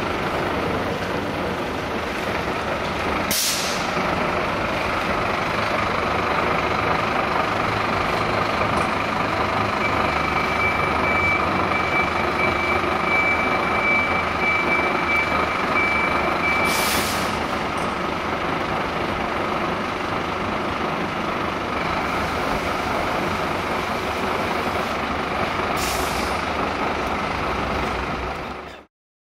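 A fire truck's diesel engine runs steadily as the truck manoeuvres. Its air brakes give three short hisses, about 3 s in, about 17 s in and near the end. A high beeper, from about 10 to 17 s in, is the reversing alarm.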